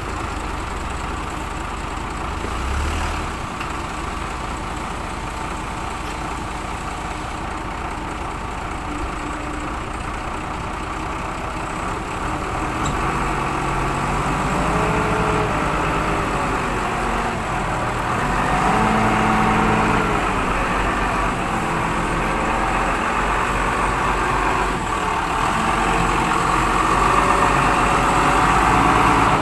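Large forklift's engine running while it carries a lifted tank, its pitch rising and falling several times around the middle, and louder near the end.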